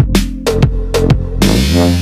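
Electronic background music with deep bass and sharp drum hits, a rushing noise swell building near the end.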